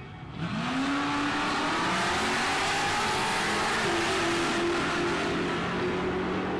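Drag car's engine revving up sharply about half a second in, then held at high revs with a small further rise partway through, under a loud hissing rush.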